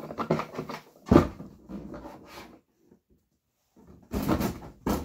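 Knocks and clatter of a toy car being handled, with one loud thump about a second in, a short quiet gap, and another burst of knocking near the end.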